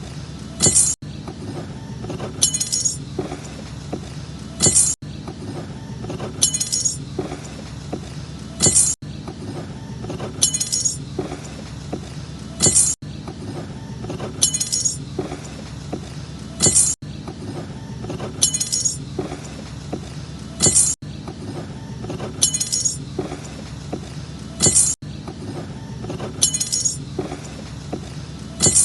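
A knife's metal blade clinking sharply, as if dropped and bouncing, over a steady low background hum. The same pair of clinks repeats every four seconds, like a loop.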